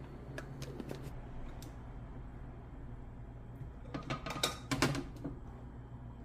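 Kitchen clatter: a few light clicks and taps, then a short burst of rattling clicks about four seconds in, over a steady low hum.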